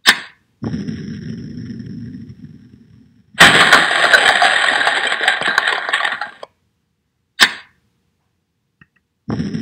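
Earthquake sound effects from an animated simulation: a sharp click, then a low rumble lasting about two and a half seconds, then about three seconds of loud crashing and breaking noise that cuts off suddenly, and another single click a second later.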